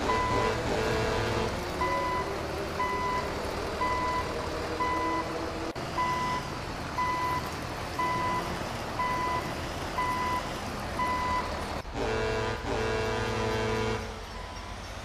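A vehicle reversing alarm beeping about once a second over a steady rumble. The beeping stops about eleven seconds in, and a different, steadier sound made of several held tones takes over.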